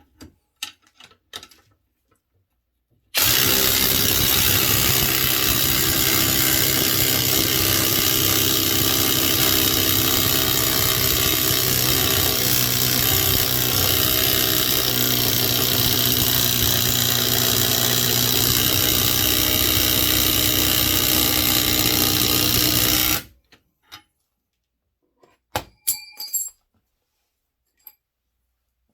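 Ryobi 18V One+ HP brushless 1/2-inch impact wrench hammering continuously on mid torque against a 5/8-inch bolt. It starts about three seconds in, runs steadily for about twenty seconds and stops abruptly. The bolt neither snaps nor twists; the washer spreads open instead. A few light metallic clicks follow near the end.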